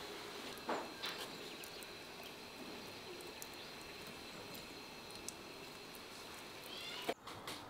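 Quiet outdoor background with sparse, faint ticks of juice dripping from a pan of stone-pressed eggplant, after a couple of soft knocks in the first second. A short run of bird chirps comes near the end.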